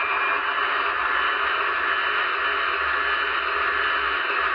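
Onboard sound system of an MTH HO-scale Union Pacific 4500 hp gas turbine locomotive model playing the turbine's running sound through the model's small speaker: a steady, even rush of noise like static, with a faint low hum underneath.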